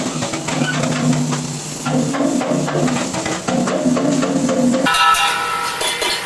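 Background music with a steady percussive beat over low sustained notes; about five seconds in it switches abruptly to brighter, higher notes.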